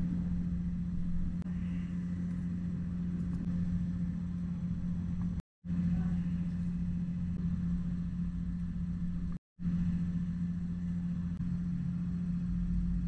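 A steady low machine hum with a rumble beneath it, broken twice by brief dead-silent gaps, once just past the middle and again about three quarters of the way through.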